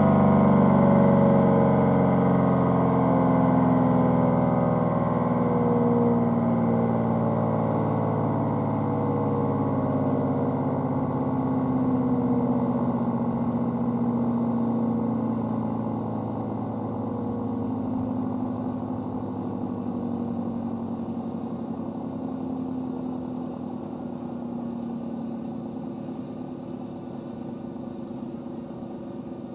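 ACA P-10 outdoor warning siren winding down at the end of a full alert test: its tone glides slowly lower and fades, with slow swells in loudness.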